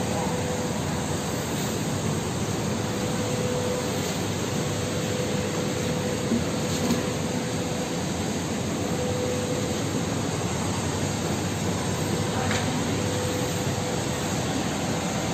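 Steady mechanical roar with a constant hum underneath, unchanged throughout: the running cooling and air-handling plant of an indoor snow ski hall.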